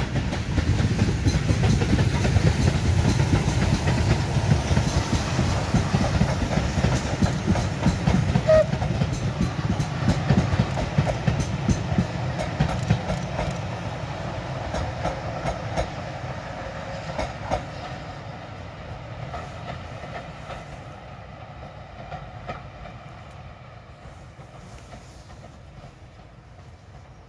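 Steam-hauled passenger train passing close by, loudest in the first few seconds, with the coaches' wheels clicking over the rail joints. The sound then fades steadily as the train draws away.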